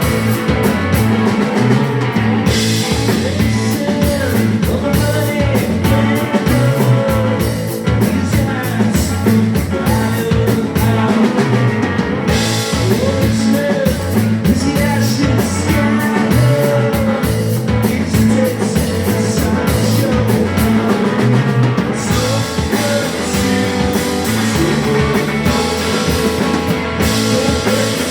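Rock music with drums, guitar and singing.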